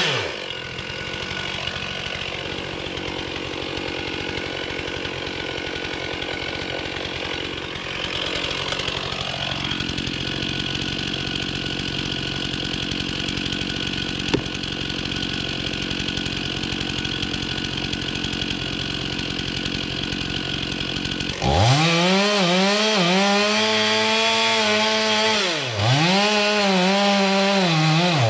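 A gas chainsaw cutting into a large tree trunk. It comes in abruptly and loud about three-quarters of the way through, its engine pitch swinging up and down again and again as it revs and bogs in the cut. Before that there is a steady mechanical running sound.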